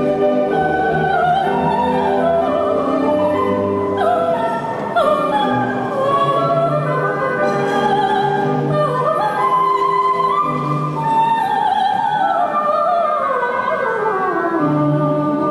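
A woman singing in an operatic style into a microphone over orchestral accompaniment. Her melody wavers with vibrato, and near the end a long phrase falls steadily in pitch.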